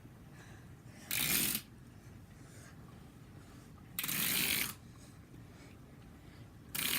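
Three short scraping, rustling bursts from toy cars being handled and moved on a surface, about a second in, past the middle and again at the end.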